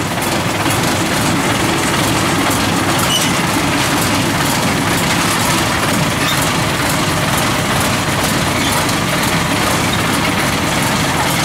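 Tracked rice combine harvester's diesel engine running steadily as the machine crawls across steel loading ramps onto a ferry, with faint clicks and clanks through the engine noise.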